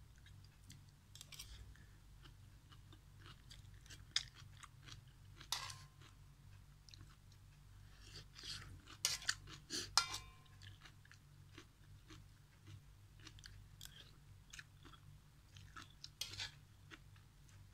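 Close-up eating of instant noodle soup: soft chewing and slurping throughout, with a metal spoon clinking against the metal wok twice, briefly ringing, about five and a half seconds and ten seconds in. A low steady hum runs underneath.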